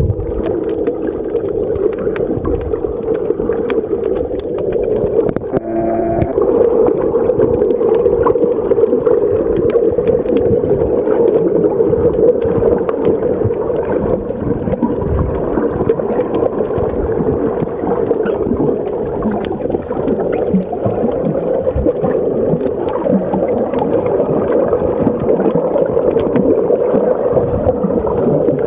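Underwater sound picked up by a submerged camera: a steady muffled rush of water with many faint crackling clicks. A brief humming tone comes in about six seconds in.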